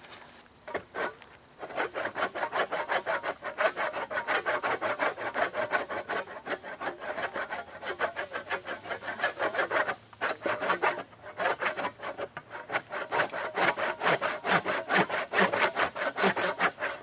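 Hand saw cutting through a log in quick, rhythmic back-and-forth strokes, with a short pause about ten seconds in.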